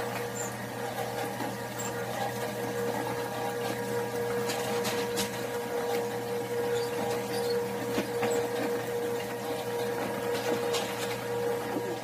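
Electric motor and conveyor of an automatic rice-seedling tray sowing machine running with a steady hum, with a few faint clicks from the mechanism.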